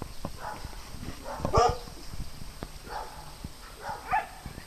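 Dogs barking in a few short yips, about four in all, the loudest about a second and a half in.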